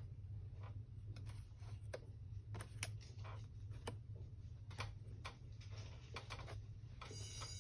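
Faint, irregular light clicks and taps of a marker and a paper template being handled on a sheet of stained glass lying on a plastic grid work surface, over a steady low hum.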